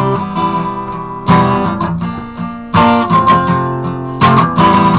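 Acoustic guitar strummed hard between sung lines of a folk-punk song: a strong chord struck about every second and a half, each ringing out and fading before the next.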